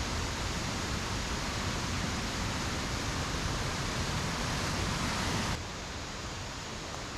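Steady rushing of a stream running high after heavy rain. About five and a half seconds in, it drops suddenly to a quieter level.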